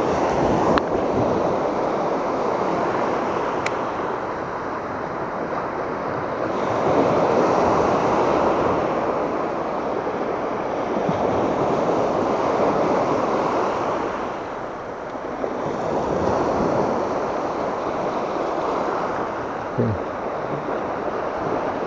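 Small surf waves breaking and washing up a sandy beach, the rush swelling and ebbing every few seconds, with some wind on the microphone. A brief click sounds about a second in and another near four seconds.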